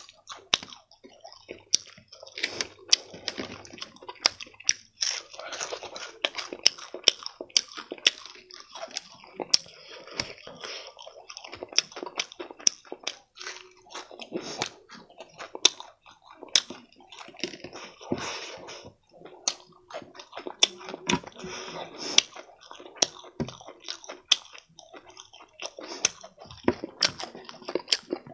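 Close-miked chewing and mouth sounds of a person eating, with many sharp crunches and smacks throughout.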